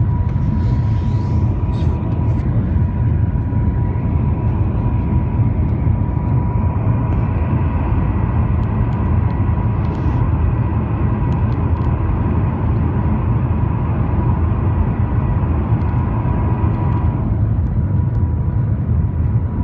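Cabin noise inside a Shanghai maglev train travelling at speed: a steady loud low rumble with a thin steady whine above it. Some of the higher whine fades away about three-quarters of the way through.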